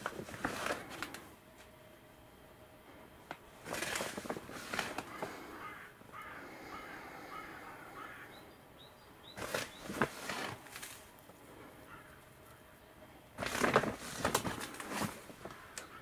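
Sand being sprinkled over a planting bed: four bursts of gritty pouring and scattering, each a second or two long, with quieter pauses between.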